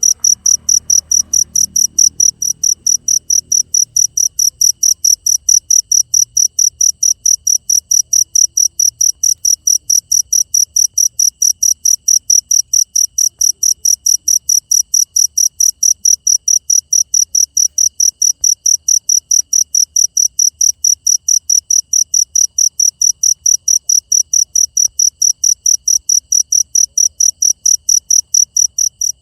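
Cricket chirping steadily, about three evenly spaced high chirps a second, breaking off briefly at the very end.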